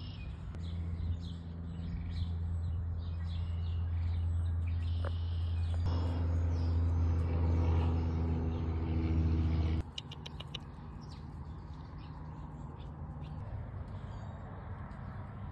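Small birds chirping in the background over a steady low mechanical hum. The hum breaks off abruptly about ten seconds in, followed by a few quick clicks.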